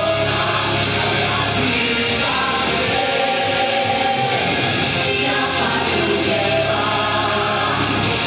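A vocal ensemble singing a pop song over instrumental accompaniment with a steady beat, the voices holding long notes.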